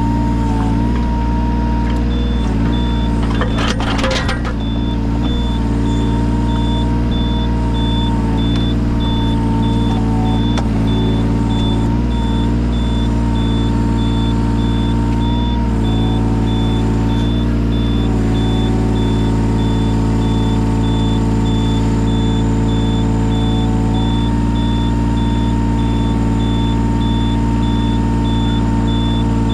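Yanmar 017 mini excavator's diesel engine running steadily, with a faint high beep repeating at an even pace. A brief clatter about four seconds in.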